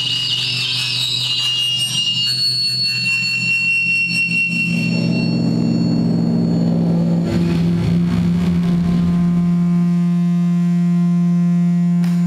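Electronic noise from analog synthesizers: warbling high tones and a steady high whistle fade out over the first few seconds, giving way to a low drone that swells with noise and then settles into a steady buzzing hum.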